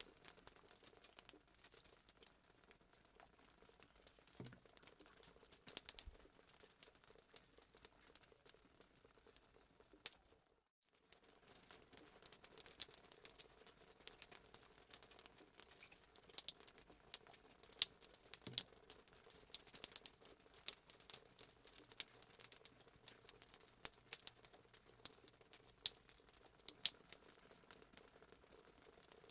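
Fireplace sound effect: a wood fire crackling, with many irregular sharp pops and snaps. The sound cuts out completely for an instant about ten seconds in.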